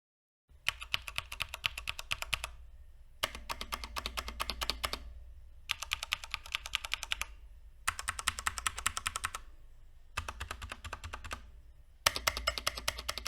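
Typing on mechanical keyboards with Cherry MX switches: six short bursts of quick keystrokes, several a second, with brief pauses between them.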